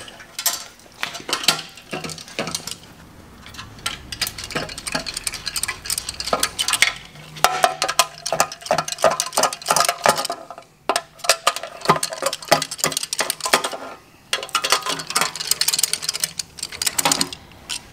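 Irregular light metallic clicks, clinks and rattles of loosened bolts being spun out by finger and handled on the underside of an engine.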